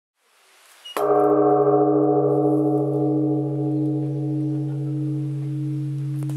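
Large bronze Japanese temple bell (bonshō) struck once with a hanging wooden log about a second in, then a deep, long ring that slowly fades, its tones wavering in strength.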